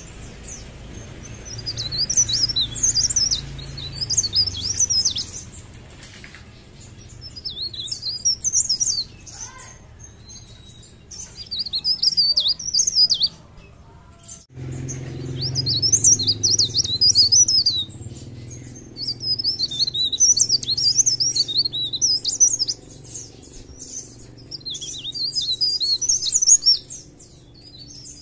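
A cikrak daun (blerengan) leaf warbler singing vigorously: rapid, high-pitched twittering phrases of a second or two, repeated again and again with short pauses between them.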